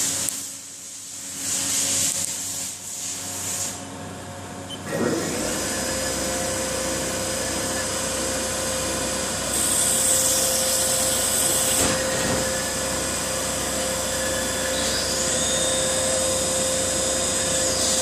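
Haas vertical machining center running a turning operation on bar stock: a steady machine tone with hiss from cutting and spray, taking hold about five seconds in after a quieter stretch of changing hiss. The hiss grows louder and brighter for a couple of seconds partway through and again near the end.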